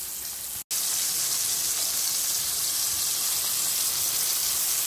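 Delmonico steak sizzling in a cast iron skillet, a steady frying hiss. It cuts out for an instant just under a second in, then comes back slightly louder.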